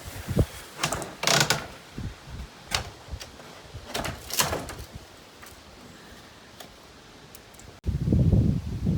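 Hammer work on salvaged siding: a few irregular, sharp knocks and a longer scrape. Near the end the sound cuts abruptly to wind rumbling on the microphone.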